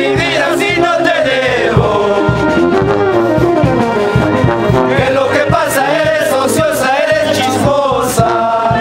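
Brass band playing a melody on trumpets and sousaphones, over snare drum and cymbal hits.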